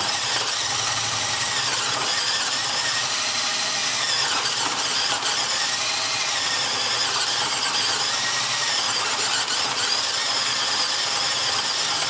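Cordless drill running continuously under load, its long bit boring down through wood. It makes a steady high whine that wavers a little in pitch.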